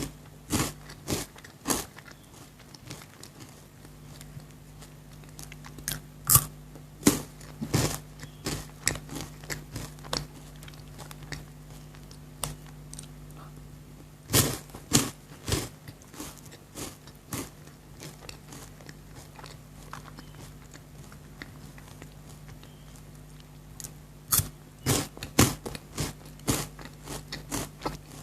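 Close-miked biting and chewing of crunchy chocolate, in clusters of sharp crunches every several seconds with quieter chewing between.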